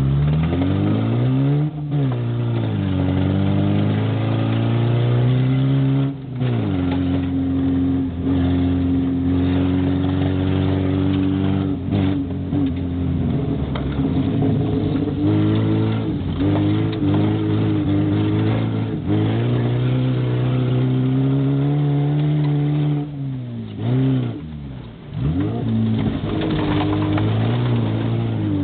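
Race car engine running hard and revving, its pitch climbing and falling over and over, with short drops every few seconds as the throttle is lifted or a gear changes.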